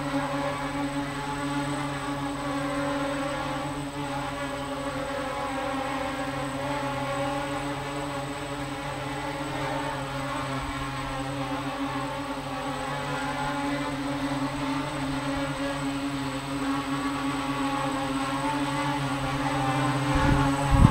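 Mini quadcopter's four motors and propellers buzzing steadily as it flies about. It grows louder in the last second, with a sudden low rumble near the end.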